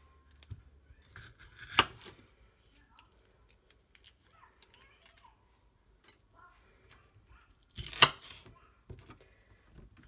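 Chef's knife cutting mini sweet peppers: quiet crisp slicing and small clicks, with two sharp knocks, one about two seconds in and one about eight seconds in.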